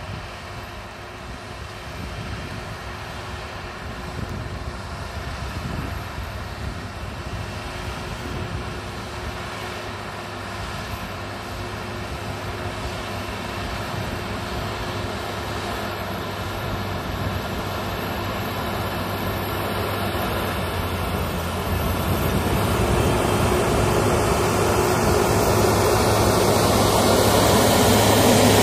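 BTZ-243K wheeled tractor's diesel engine running steadily under load as it pulls a seven-furrow plough through the soil, growing louder as it approaches and passes close by near the end.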